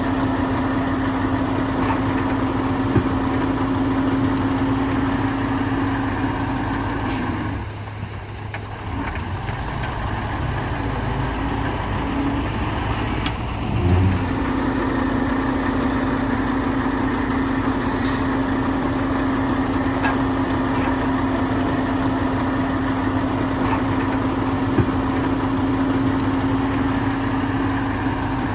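Heavy diesel engine of earthmoving machinery running steadily with a droning tone. The drone drops away about seven seconds in and returns about fourteen seconds in, where the level briefly jumps.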